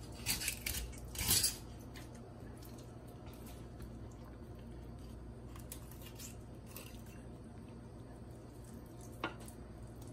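Fillet knife cutting through a remora's rib bones and scraping on a granite countertop: a run of sharp clicks and scrapes in the first second and a half, then quieter knife work with one more sharp click near the end.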